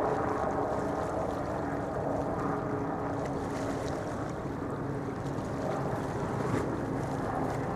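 Steady ride noise of a moving vehicle: an even low rumble and hiss with a faint steady hum underneath.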